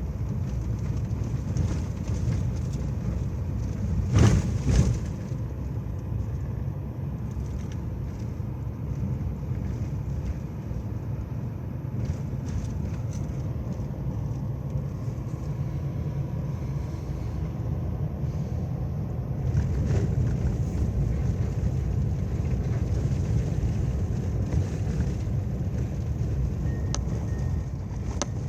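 Steady low rumbling noise, with a short louder burst about four seconds in.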